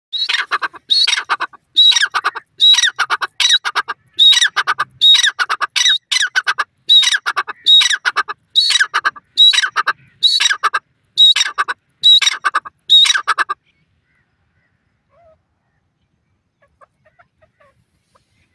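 Grey francolin (teetar) calling: a loud, harsh phrase of several quick notes repeated about once a second, stopping abruptly about thirteen seconds in. Only a few faint small sounds follow.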